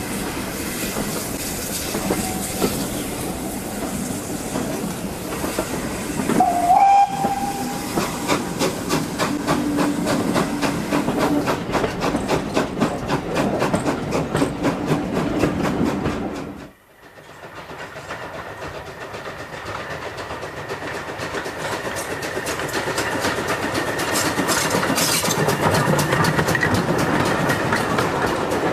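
Steam train running, with one short whistle blast about a quarter of the way in, followed by a run of rapid, even beats. After a sudden break a little past halfway, the train noise builds again and grows louder toward the end.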